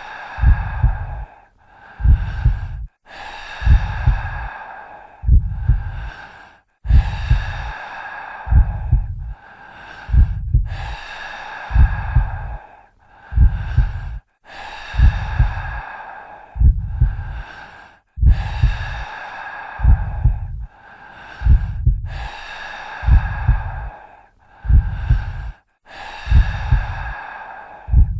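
Heartbeat with heavy breathing: a deep double thump (lub-dub) about every second and a half, under slow, loud breaths in and out, with short silences between them.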